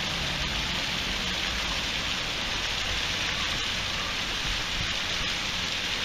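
Water rushing steadily down an artificial waterfall: an even, unbroken hiss.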